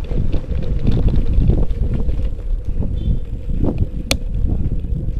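Wind buffeting the microphone and tyre rumble of a bicycle rolling over brick paving, with a sharp click about four seconds in.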